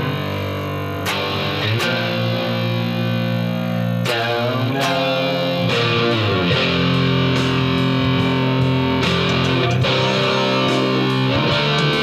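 Electric guitar playing a chorus riff of ringing, sustained chords, with fresh chords struck several times through it. The strings rattle strongly.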